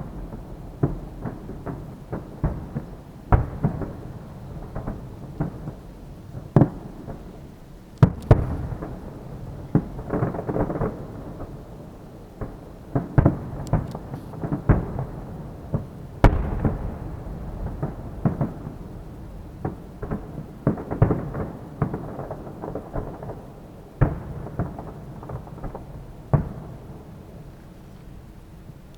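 Aerial fireworks shells bursting in quick, irregular succession, each sharp bang trailing into a rumbling echo, with the loudest bangs about 8 and 16 seconds in.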